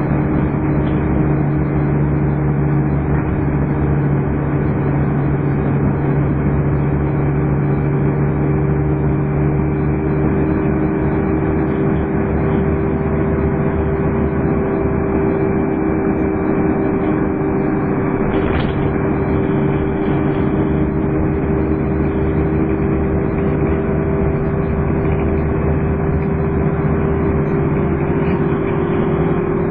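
Scania N230UD double-decker bus's diesel engine running steadily under way, with the steady vacuum-cleaner-like whine that enthusiasts call 'hoovering'. A brief knock comes about 18 seconds in.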